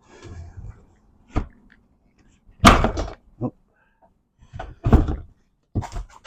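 Plastic interior door trim panel knocking and clattering against a car door as it is worked into place: about five separate knocks, the loudest about three seconds in.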